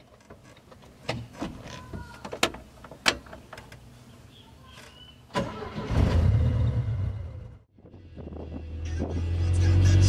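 Clicks of a key turning in an older car's ignition lock, then the engine starting and running with a low steady hum. After a break it comes back, growing louder near the end.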